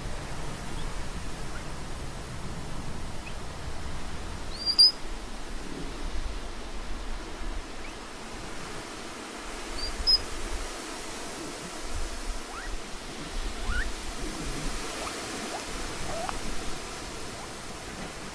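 Steady outdoor hiss with two short, high chirps, the louder about five seconds in and the other near ten seconds. Several faint calls that slide upward come in the second half.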